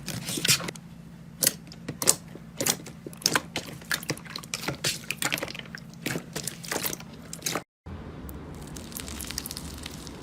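Slime being squeezed and pressed, with quick wet popping and crackling clicks. Near the end it cuts to a quieter stretch of soft, sticky crackle.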